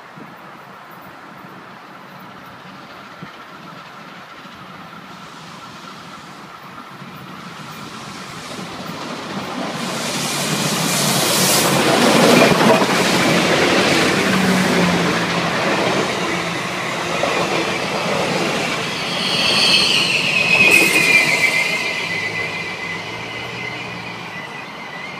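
Santa Fe 3751, a 4-8-4 steam locomotive, and its train passing close by. The rumble and rail noise swell to their loudest about halfway in. High wheel squeal falling in pitch comes in a few seconds later, then the sound fades as the train draws away.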